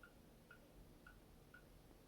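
Faint, steady ticking of a clock, about two ticks a second, in an otherwise near-silent room.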